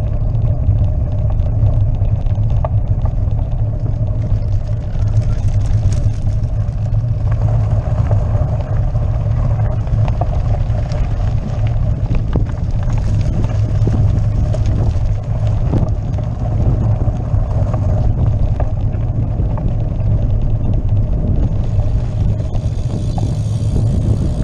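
Loud steady rumble with dense rattling from a bicycle-mounted camera riding over cobblestones, the bike and mount shaking on the pavé.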